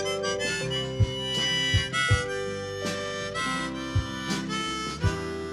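Live band playing an instrumental passage between sung lines: a harmonica carries the melody in held notes over strummed acoustic guitar, bass, keyboard and drums, with a drum stroke about once a second.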